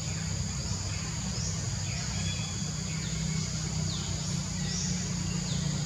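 Tropical forest ambience: a steady high-pitched insect drone with a short falling call repeating about once a second, over a steady low rumble.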